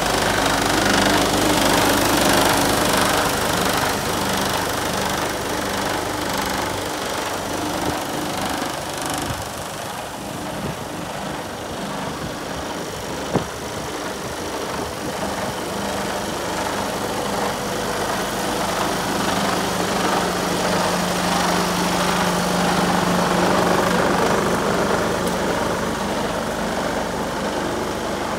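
Mercedes-Benz Actros 2545 tractor unit's straight-six diesel engine idling steadily, with a single sharp click about thirteen seconds in.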